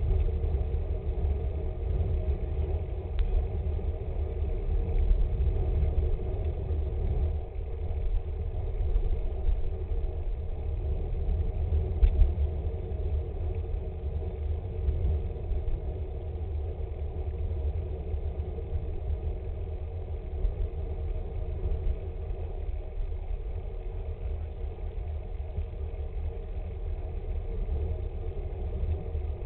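Steady low wind rumble on a bicycle-mounted camera's microphone, mixed with road-bike tyre noise on asphalt while riding at speed, with a sharp knock from the road surface about twelve seconds in.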